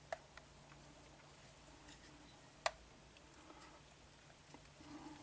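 A few faint, sharp small clicks over quiet room tone, the loudest about two and a half seconds in: the parts of a windshield washer pump being handled and fitted back together.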